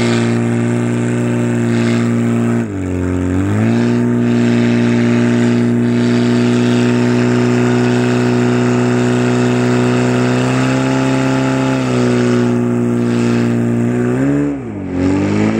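Portable fire pump's petrol engine running steadily at high revs, pumping water out to the attack hoses. Its pitch dips and recovers twice, about three seconds in and near the end.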